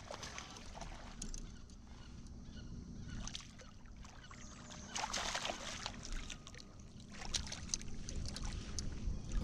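A hooked smallmouth bass thrashing and splashing at the water's surface beside a kayak as it is played in. The clearest splashes come about five seconds in, then a run of short splashes near the end as it is brought alongside to be landed.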